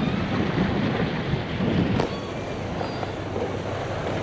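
Wind buffeting the microphone over a low steady rumble, with one sharp click about two seconds in.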